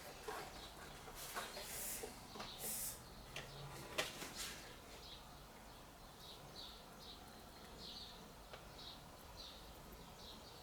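Faint bird chirping: short high chirps repeating about twice a second through the second half, after a few soft clicks and rustles of handling.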